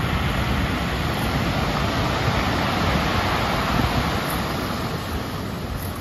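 Ocean surf breaking against rocks and washing up over a pebble beach, a steady rushing noise that eases slightly near the end, with wind rumbling on the microphone.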